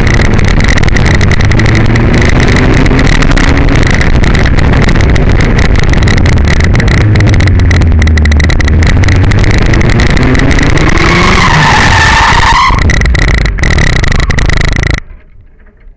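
Ariel Atom's engine running hard at speed, its note rising and falling through gear changes, with heavy wind buffeting on the microphone of the open cockpit. Around twelve seconds in the tyres squeal briefly as the car corners hard, and the sound cuts off suddenly about a second before the end.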